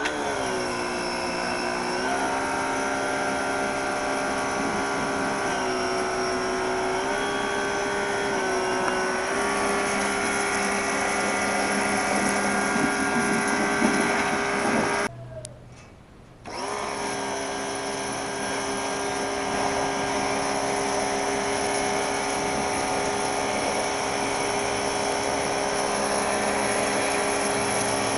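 Black & Decker PW1300TDW electric pressure washer (1300 W motor driving a three-piston axial pump) running under load with a steady whine, its jet spraying against rubber car floor mats. It starts at the beginning, its pitch settling within a second. About halfway through it cuts out, as the auto-stop shuts the motor off when the gun trigger is released, then starts again a second and a half later.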